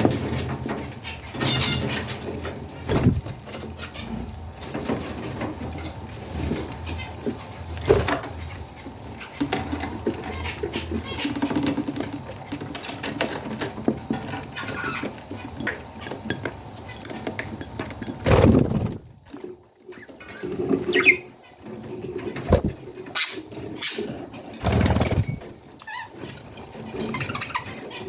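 Budgerigars chirping and calling, mixed with scattered clicks and knocks and a couple of louder thumps, about two-thirds of the way in and near the end.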